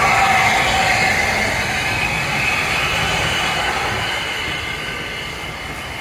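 A small steam tank locomotive and its vintage passenger coaches rolling slowly past at close range: a steady noise of wheels and running gear that gradually fades as the engine draws away.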